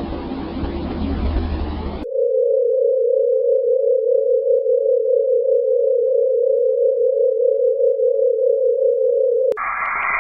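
Sonified space recordings played one after another. A wide rumbling noise cuts off about two seconds in and is replaced by a single steady mid-pitched tone with a slight pulse. Near the end this switches abruptly to a hiss of radio-like static.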